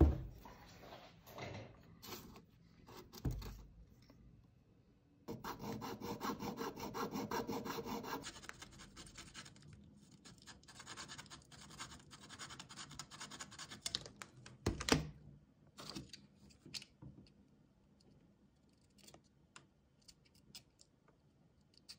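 Small hand hacksaw cutting a small piece of wood with rapid back-and-forth strokes, heaviest for about three seconds, then lighter strokes for several more. A knock near the start and another about two-thirds of the way through, then a few faint clicks.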